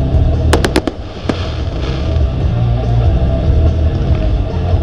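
Music playing through a fireworks display, with sharp firework cracks: three in quick succession about half a second in and one more just after a second.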